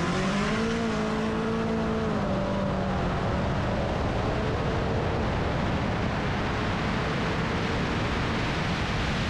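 A car accelerating hard at full throttle in a street race. The engine note rises through a gear, then an upshift comes about two seconds in. After that, heavy wind and road roar on the car-mounted microphone mostly drown the engine as speed builds.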